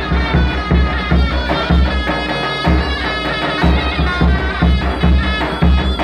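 Turkish folk dance music for the bar line dance: a heavy, steady drum beat under a shrill reed-pipe melody, in the manner of davul and zurna.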